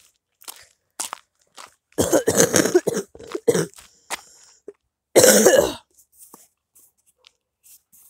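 A person coughing: a run of coughs about two seconds in and one hard cough a little after five seconds, between faint crunching footsteps on a dirt road.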